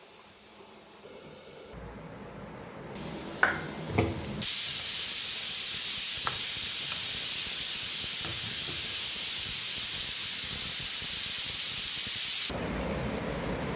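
Two short clicks, then a loud, steady cooking hiss lasting about eight seconds that cuts off abruptly.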